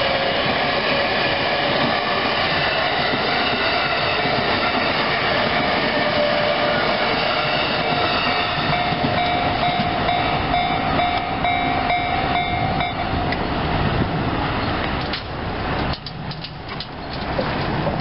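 A Yokosuka Line E217-series electric train running over a level crossing: a steady rumble of wheels on rails with a few held tones from the train. The noise drops away near the end, and a few scattered clicks follow.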